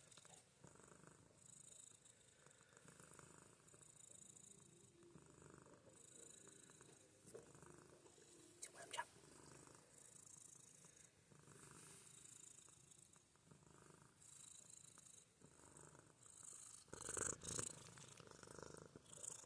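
Domestic cat purring softly, close up, the purr swelling and fading with each breath. A few louder rustles come near the end.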